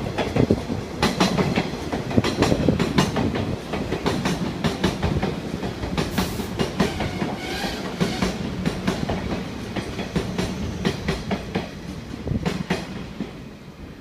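583 series electric multiple unit rolling into the platform, its wheels clicking over rail joints in irregular groups above a low rumble, with a brief squeal about six seconds in. The clicking grows sparser and quieter near the end as the train slows to arrive.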